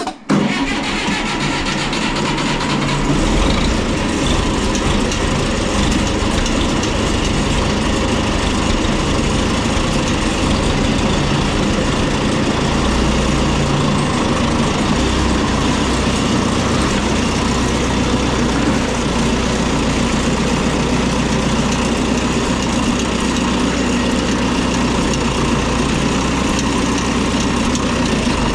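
Oliver 1950-T tractor's turbocharged GM 4-53 two-stroke diesel running steadily. The sound comes in abruptly right at the start.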